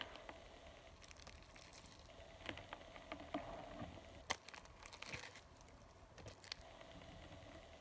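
Pink foam-bead slime being squeezed and stretched by fingers, giving faint scattered sticky clicks and crackles.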